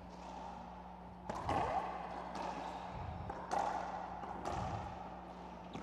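Racquetball rally: about five sharp pops of racquet on ball and ball off the walls, each echoing around the enclosed court.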